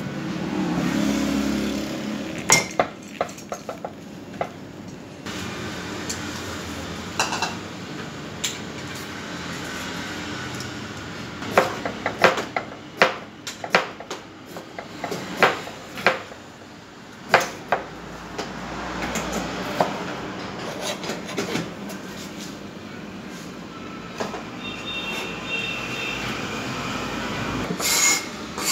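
A cleaver chopping vegetables on a plastic cutting board: irregular sharp knocks, thickest in the middle, over steady kitchen background noise.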